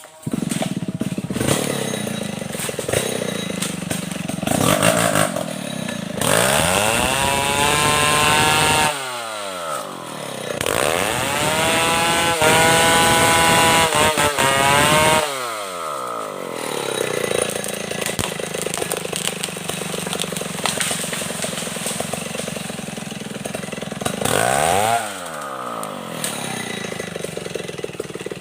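Stihl 070 chainsaw's two-stroke engine running, opened up to full throttle twice for several seconds each, the pitch falling back toward idle in between. There is a short rev near the end.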